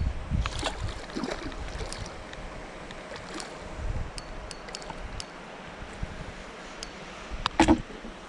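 Outdoor wind rumbling on the microphone, with scattered small clicks and handling knocks. A short, louder noise comes near the end.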